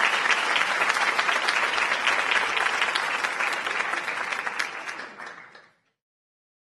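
Audience applauding, the clapping fading out and stopping about five and a half seconds in.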